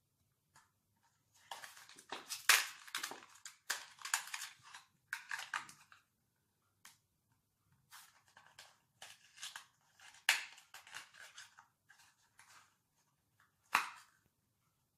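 Crinkling and rustling of a small raisin packet being handled and shaken out, in two spells, with one sharp snap near the end.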